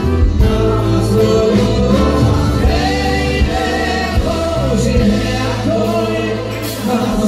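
A man singing a slow Hasidic-style song into a microphone in long held notes, other men's voices singing along, over instrumental backing with a steady bass.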